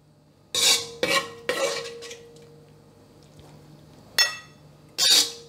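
Metal spoon scooping food out of a stone-coated wok and onto a ceramic plate: about five scrapes and clinks, one of them ringing out a little longer a few seconds in.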